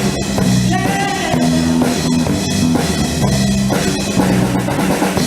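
Small live rock band playing: electric guitar, bass guitar and drum kit, with sustained low chords changing in steps over steady drumming.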